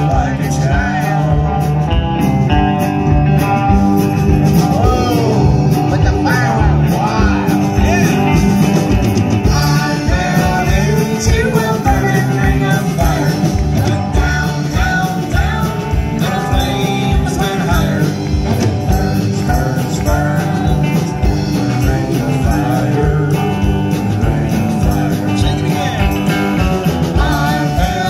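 Live band playing: electric guitars and drums with a steady beat, and a singer's voice over the music.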